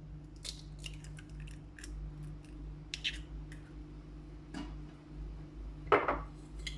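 Scattered light clicks and taps of small objects being handled, with a sharper knock about halfway and a louder, slightly longer knock near the end, over a steady low hum.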